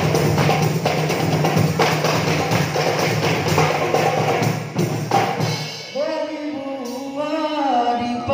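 Rebana frame drums and a large barrel drum playing a steady, driving rhythm together. About six seconds in the drumming drops away and a single voice begins a chanted song.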